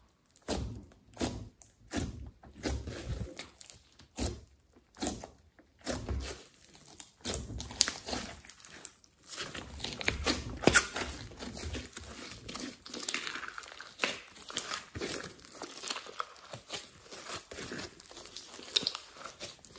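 Hands squeezing and pressing a large mass of slime: irregular crackling clicks, sparse with short gaps at first and denser from about a third of the way in.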